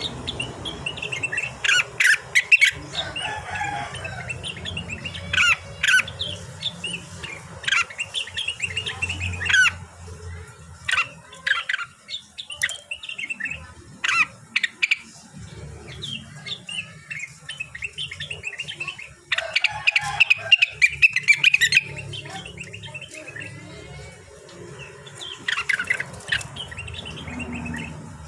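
Leafbird (cucak rengganis / cucak wilis) singing while in moult: sharp chirps and quick warbled phrases in clusters with short pauses between them.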